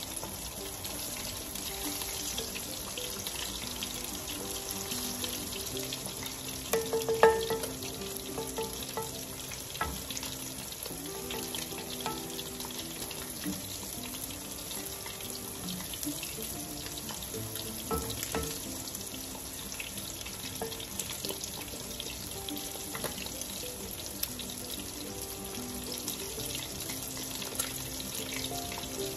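Butter sizzling gently as it melts in an enamelled pot, stirred with a wooden spatula, with one brief louder knock about seven seconds in. Soft background music plays under it.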